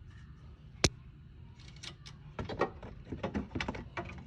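Hard plastic and metal parts of a fog light clicking and rattling as it is handled and fitted into its bracket: one sharp click about a second in, then a run of quick irregular clicks and knocks, over a low steady hum.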